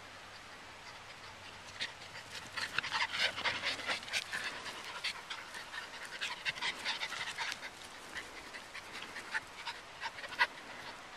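Welsh terrier puppies panting in quick, irregular breaths, densest from about two seconds in and thinning out after about eight seconds.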